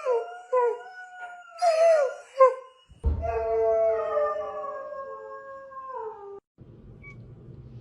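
A dog giving a few short wavering yips and howls, then one long, slowly falling howl of about three seconds that cuts off abruptly.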